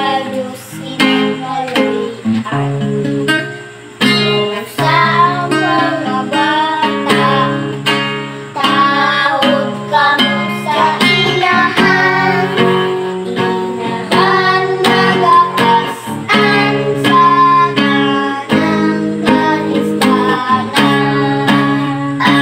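Children singing a song together over acoustic guitar accompaniment.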